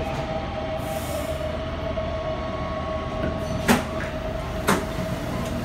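A Taipei Metro Bannan line train standing at the platform, its equipment giving a steady hum at one pitch over a low rumble. Two sharp knocks come about a second apart a little past the middle.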